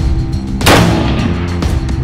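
One loud rifle shot from a PSL 54 firing 7.62x54R, about two-thirds of a second in, with a short ringing tail. Background music with sustained notes plays throughout.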